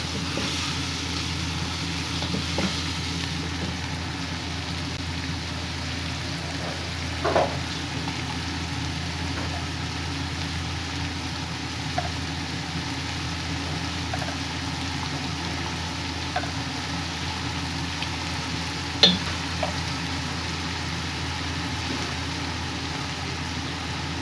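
Julienned carrot and green bell pepper sizzling steadily in a wok while being stir-fried with a spatula, with a few light knocks of the utensil against the pan; the sharpest click comes about three quarters of the way through.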